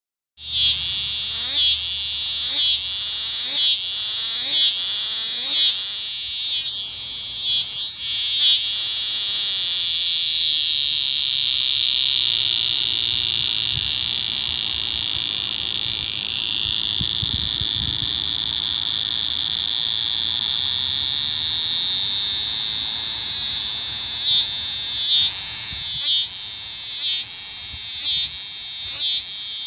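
Scissor grinder cicada (Neotibicen winnemanna) singing a loud, high buzz. It pulses about one and a half times a second at first, settles into a steady unbroken buzz from about eight seconds in, and goes back to pulsing near the end.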